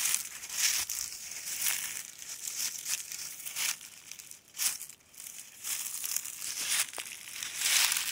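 Footsteps crunching through dry leaf litter, an uneven crunch about once a second.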